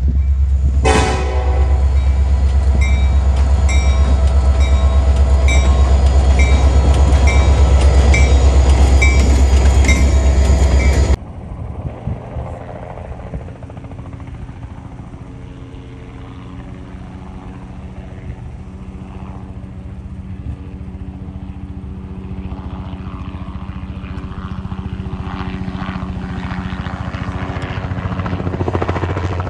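Railroad crossing bell ringing in an even, repeating stroke over a loud low rumble, cut off abruptly about 11 seconds in. Then a low-flying crop-spraying helicopter's rotor and engine hum, steady in pitch and slowly growing louder.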